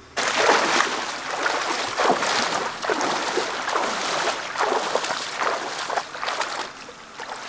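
Water splashing and sloshing, many irregular splashes one after another, starting abruptly and continuing throughout.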